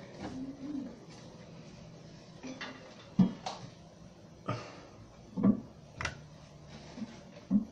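A few sharp knocks and clunks, about five spread over several seconds, from hard objects being handled and set down at the toilet tank.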